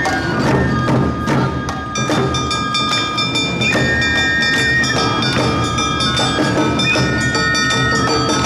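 Awa Odori festival music (narimono): bamboo shinobue flutes holding long high notes over a steady beat of taiko drums and small metal gong strikes.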